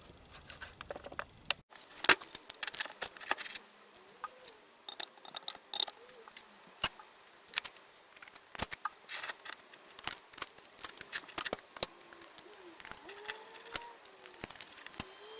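Irregular sharp metallic clicks and clinks of small hardware being handled and fitted: the brake-disc bolts and nuts going onto the front wheel hub of a 1977 BMW R75/7.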